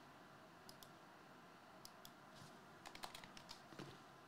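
Near silence: faint room tone with a few small scattered clicks, and a quick cluster of clicks and taps about three seconds in.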